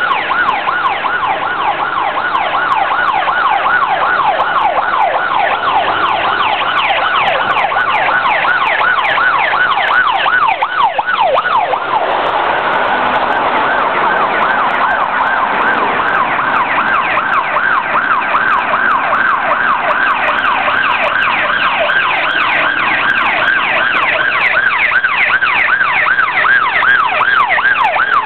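Several fire engine sirens on a fast rising-and-falling yelp, overlapping at slightly different pitches as the fire appliances drive past one after another.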